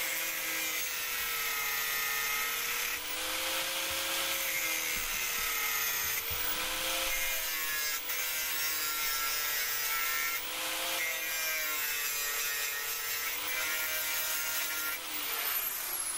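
115 mm angle grinder with a thin cutting disc grinding protruding hinge screw threads off flush with a cast iron window frame. The motor whine sags and recovers several times as the disc bites into the metal, and a high whine falls away near the end as the grinder is switched off and winds down.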